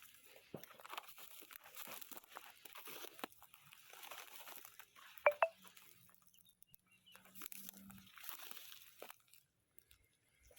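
Irregular crunching and rustling of movement through dry grass and brush, with one brief sharp sound about five seconds in.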